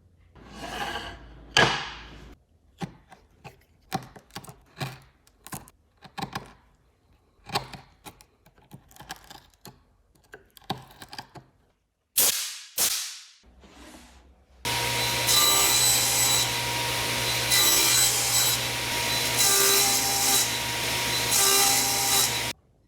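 Woodworking sounds: hand-tool strokes and a string of short taps and scrapes on wood, then two quick sweeping strokes. A power tool then starts and runs steadily for about eight seconds, the loudest sound here, and stops abruptly near the end.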